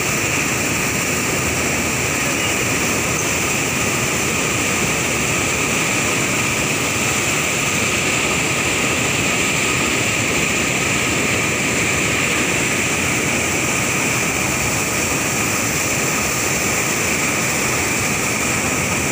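Water pouring out through sluice gates into a river, a loud, steady rush of whitewater.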